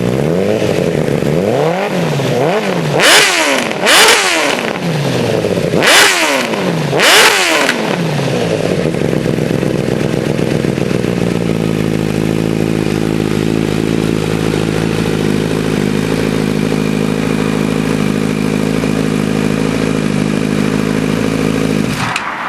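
2008 Honda CBR1000RR Fireblade's inline four-cylinder engine through a Leo Vince GP-Pro slip-on exhaust, blipped several times in quick succession, the four loudest revs in the middle of that run. It then settles back to a steady idle, which stops near the end.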